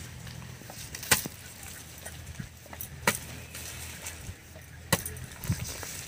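A kodal, a short-handled digging hoe, chopping into damp soil while digging up taro: three sharp strikes about two seconds apart, with lighter knocks between them.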